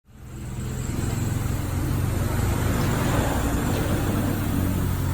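A motor vehicle engine running steadily, fading in over the first second.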